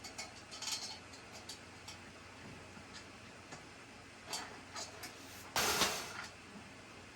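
Light clicks and taps of screws and metal-and-wood shoe rack parts being handled during assembly, with a louder scraping burst of about half a second some five and a half seconds in.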